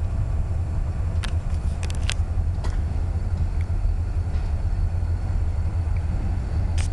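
Low, steady rumble of a diesel-hauled train approaching in the distance. A few sharp clicks come between about one and three seconds in, and once more near the end.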